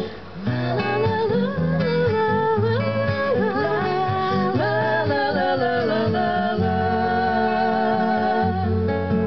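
Song introduction on strummed acoustic guitar, with a wavering melody line held above it, rising and falling, from about half a second in until near the end.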